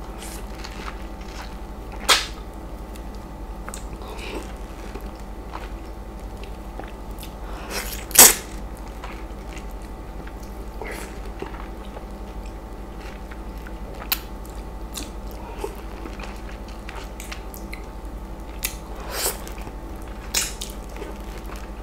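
Close-miked wet mouth sounds of biting and sucking the juicy flesh of a ripe East Indian mango, with scattered sharp wet smacks, the loudest about two seconds in and about eight seconds in, over a steady low hum.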